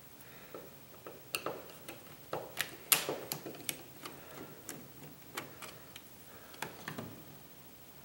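Flathead screwdriver turning out the screws of a plastic light-switch cover plate: a scatter of irregular light clicks and scrapes, the sharpest about three seconds in.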